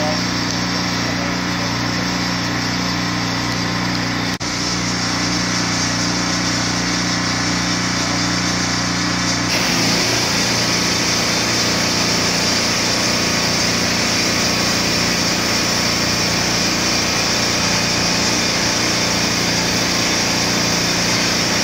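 Hot-water pressure washer running steadily: a small engine's hum under the hiss of the water spray rinsing the siding. About ten seconds in the sound changes suddenly and the spray hiss grows louder.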